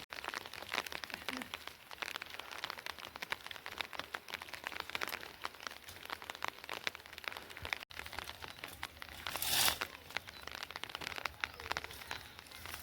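Rain falling, with dense irregular ticks of drops hitting a surface, and a brief louder rush about nine and a half seconds in.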